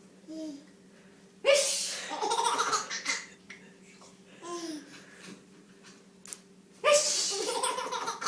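Two sneezes, about five seconds apart, each sudden and loud and each followed at once by a burst of a young child's high-pitched laughter; short small giggles come in between.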